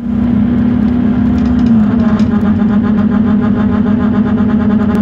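Scania K230UB city bus heard from inside while driving: a loud, steady droning hum with a rapid pulsing over it, the pitch dipping slightly about two seconds in. It is the abnormal noise of a bus its owner calls broken, with the cause unknown.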